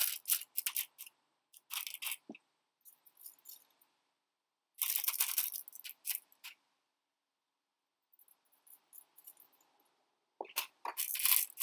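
Glass gemstones clinking against one another as they are set into a tinfoil boat already loaded with gems, in several bursts of clicks with pauses between, the longest burst in the middle.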